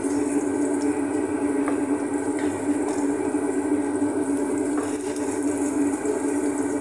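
Chopped onion and garlic sautéing in oil in an aluminium pot while a wooden spoon stirs and scrapes them, over a steady rushing kitchen noise; a few light knocks of the spoon on the pot.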